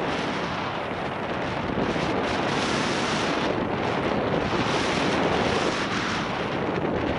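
Wind rushing over the microphone of a skier on a downhill run: a loud, steady rushing noise that swells and eases every few seconds.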